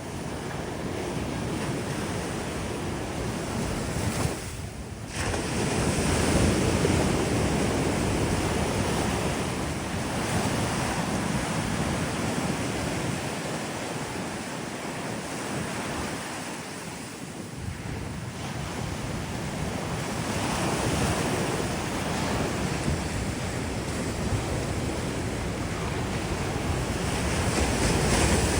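Ocean surf breaking and washing onto a sandy beach, rising and falling in swells every several seconds, with wind buffeting the microphone.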